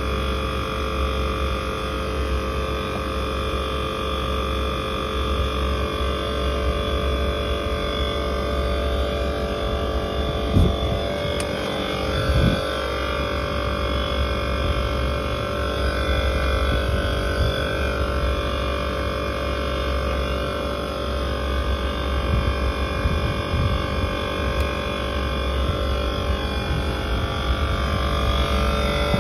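Actron air conditioner outdoor unit with its digital scroll compressor running, a steady hum with no audible change in load, during a test of its loading and unloading. The technician finds its unloading solenoid coil is not energizing. Two brief knocks come about ten and twelve seconds in.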